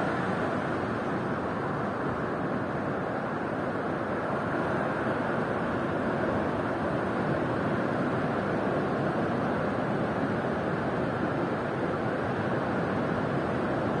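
Ocean waves breaking and washing up the shore: a steady, unbroken rush of surf.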